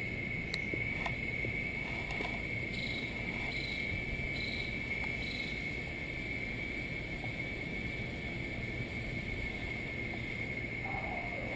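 Steady, unbroken high-pitched insect drone. About three seconds in, four short high chirps sound roughly a second apart.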